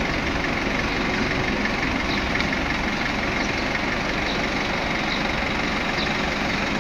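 Toyota forklift's engine running steadily at low speed as the forklift creeps forward.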